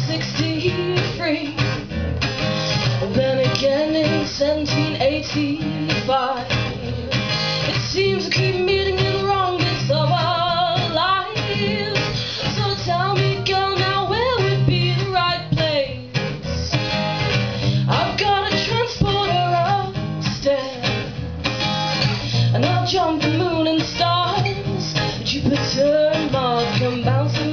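A woman singing to her own strummed acoustic guitar: a live solo song.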